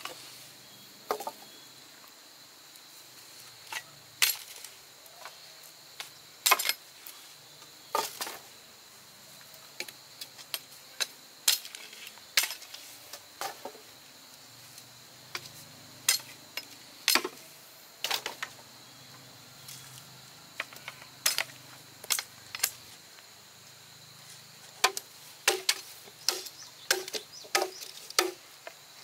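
Irregular sharp clicks and knocks, one every second or so and sometimes in quick clusters, over a steady high-pitched insect drone.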